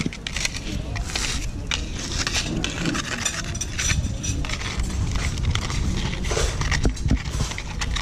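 Rustling and crackling of a dry leaf as a cat bats and paws at it, many short irregular crackles over a steady low rumble.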